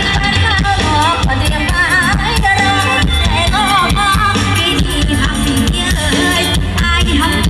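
Live luk thung–mor lam band music with a woman singing into a microphone, her ornamented line wavering with vibrato over the band's bass and drums, heard through the stage PA.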